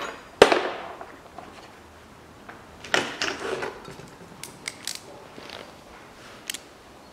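A sharp clank with a short ring about half a second in, then a clatter of lighter knocks around three seconds in and a few single clicks after: tools or metal parts being set down and handled.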